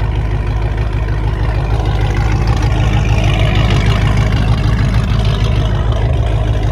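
Car engine idling close by: a steady, low rumble.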